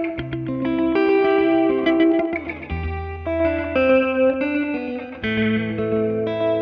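1973 Fender Jazzmaster electric guitar played through a Swart AST Pro valve amp with old-school echo, in a surf style: a melody of single notes changing several times a second over lower held notes.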